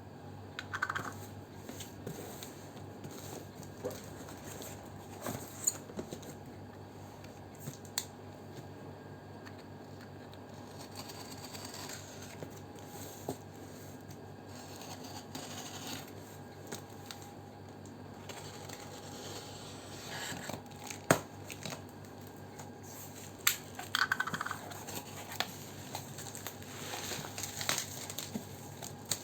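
Packaging being handled and opened: rustling, crinkling and tearing, with scattered taps and knocks of boxes being set down, one sharper knock about two-thirds of the way in, and denser crinkling near the end.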